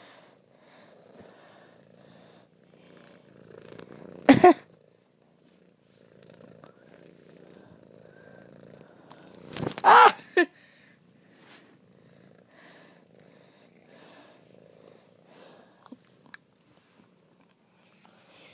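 Domestic cat purring close to the microphone in even cycles, broken twice by short, louder cat calls about 4 and 10 seconds in.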